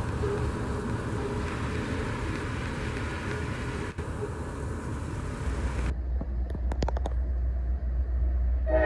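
Steady road-traffic noise that cuts off suddenly about six seconds in, giving way to a deep low rumble with a few brief clicks. Near the end a freight locomotive's air horn starts to blow.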